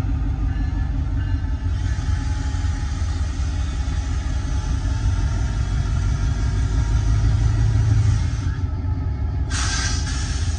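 Two GP38-3 diesel-electric switcher locomotives running and rolling slowly past, a steady low engine rumble that swells a little toward the end. A short, sharp hiss breaks in near the end.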